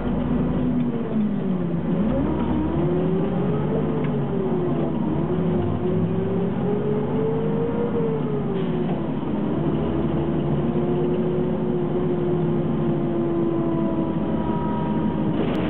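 Ikarus 280 articulated city bus's diesel engine running under way. Its pitch dips and climbs as it accelerates through the gears of the manual gearbox, drops once about halfway through at a shift, then holds fairly steady.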